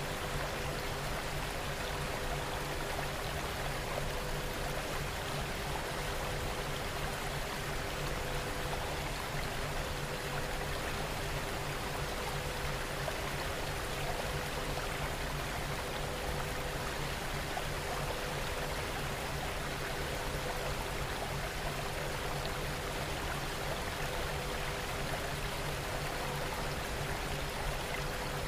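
Steady recorded rain, an even unbroken hiss of falling rain. Low steady tones run underneath it, and a slightly higher tone comes and goes.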